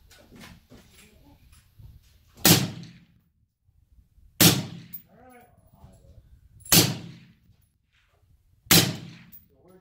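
Four suppressed rifle shots, spaced about two seconds apart, from a Colt 6933 5.56 mm short-barrelled carbine fitted with a Gemtech HALO suppressor. Each is a sharp crack followed by a short echo.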